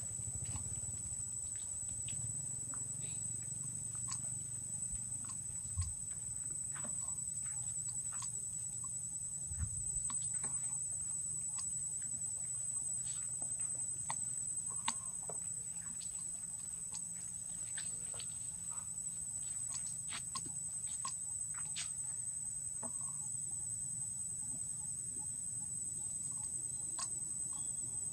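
A steady, high-pitched drone of insects, with scattered faint clicks and rustles.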